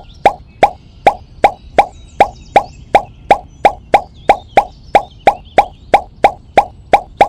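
A short, pitched pop sound effect repeated evenly about three times a second, every pop identical, marking pebbles popping into place one by one in stop motion.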